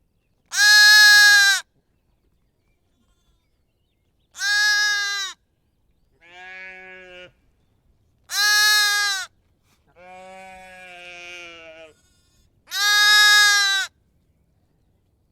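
Lamb bleating: a series of separate baa calls with silence between them. Four are loud and high, about every four seconds, and two quieter, lower calls fall between them, the second drawn out for about two seconds.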